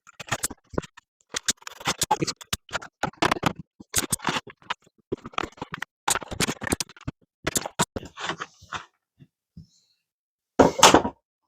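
Hand tool working wood in short, irregular scraping strokes, with a louder stroke near the end.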